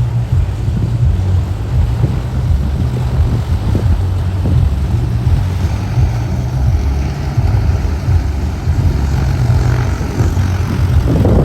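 Propeller airplane engine running steadily with a deep low rumble. The sound cuts off suddenly near the end.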